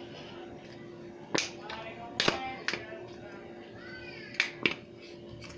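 Rubber balloon and plastic container handled while the balloon is pushed through, giving several short sharp squeaks and clicks over a faint steady hum.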